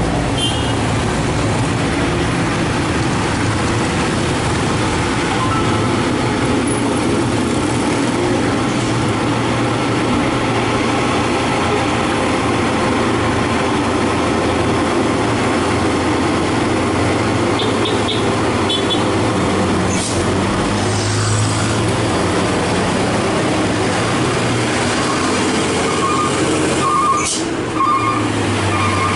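Heavy diesel trucks and other traffic driving past close by: a steady engine drone with tyre noise. Near the end a short string of quick beeps sounds.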